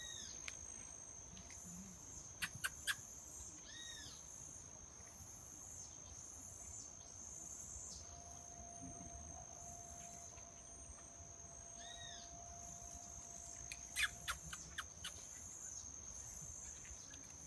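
Steady high-pitched drone of crickets or similar insects. Over it come a few short, faint arched bird calls, two small clusters of sharp clicks (about 2.5 s in and again about 14 s in), and a faint low steady tone for several seconds in the middle.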